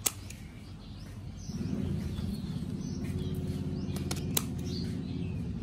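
Scissors snipping through the tough bases of oyster mushroom clusters: one sharp snip right at the start and two more about four seconds in. A low steady drone comes in about a second and a half in and carries on underneath.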